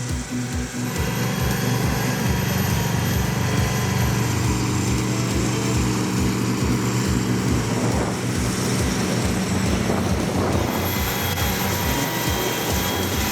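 Heavy machine's engine running steadily under load, with an evenly repeating low pulse about three times a second.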